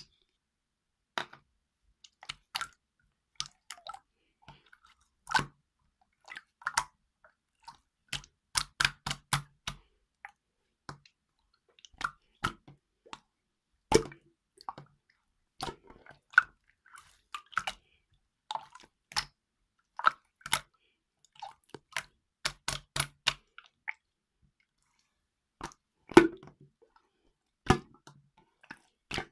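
Chewing: irregular wet clicks and smacks, some in quick runs of three to five, with short pauses between.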